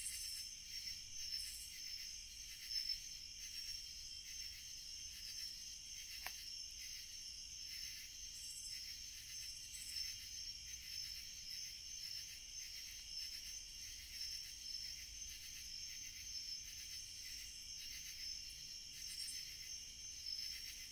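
Steady high-pitched chorus of night insects trilling without a break, with a few faint crackles from the wood fire.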